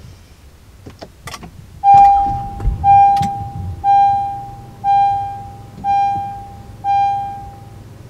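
A couple of clicks, then about two seconds in the Honda Ridgeline's 3.5-litre V6 starts with a low rumble and settles into a steady idle. Over it, a dashboard warning chime sounds six times, about once a second, each tone fading out.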